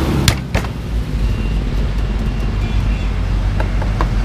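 Two sharp cleaver chops on a round wooden chopping block about a third of a second apart within the first second, then a few lighter knife taps on the block near the end, over a steady low rumble of street traffic.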